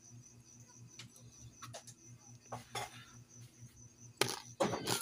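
Small metal clicks and taps of a soldering iron tip and component wire leads being handled, with a louder rattling clatter near the end. A steady low hum and a faint high whine run underneath.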